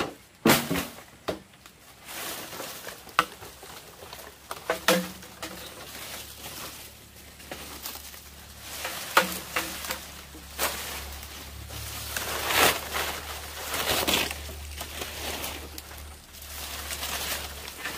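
Irregular sharp knocks and clatter, with rustling between them and louder rustling swells near the middle. A low steady hum runs through the middle part.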